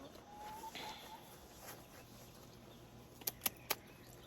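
Scissors snipping a hen's flight feathers during wing clipping: three sharp snips about a quarter second apart near the end, after a brief high note in the first second.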